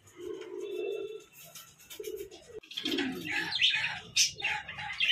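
Pigeons cooing: two low rolling coos in the first half. After a sudden break about two and a half seconds in, louder, higher-pitched chirping calls join them.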